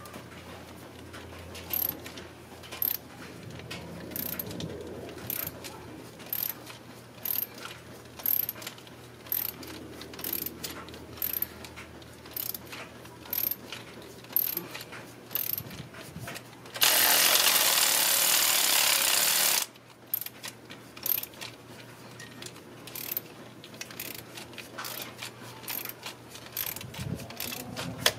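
Ratchet wrench clicking in short runs as the spark plug is worked loose from the misfiring cylinder 6, with one loud steady hiss lasting about three seconds, starting about 17 seconds in.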